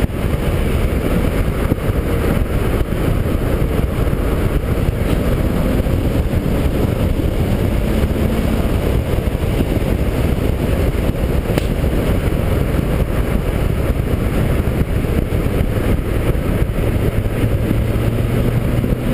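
Car driving at steady speed, heard from a camera mounted on the outside of the body: a steady rumble of wind buffeting and tyre noise, with the engine running faintly underneath.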